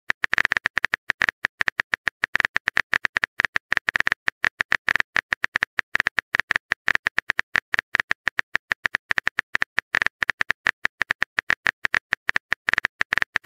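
Simulated phone-keyboard typing sound effect: rapid, uneven key clicks, several a second.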